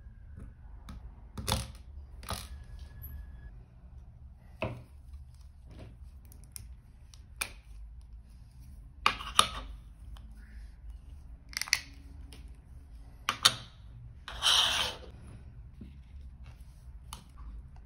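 Scattered light clicks and taps from hands handling a plastic eyeglass frame, small hinge parts and a screwdriver on a work surface, with one longer, louder scrape near the end.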